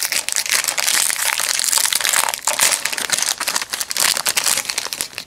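Foil wrapper of a 2004 Fleer Skybox Limited Edition football card pack crinkling and crackling as it is torn open by hand, a dense, continuous run of fine crackles.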